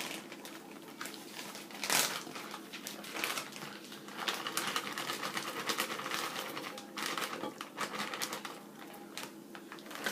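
Crinkling and a run of light clicks and knocks as frozen banana pieces are handled and dropped into a blender jar.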